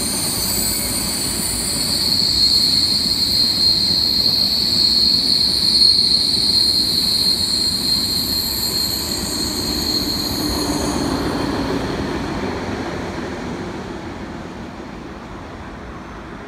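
KTX high-speed train running past on the rails: a steady rumble with a steady high-pitched whine over it. The whine stops about eleven seconds in, and the rumble fades as the train draws away.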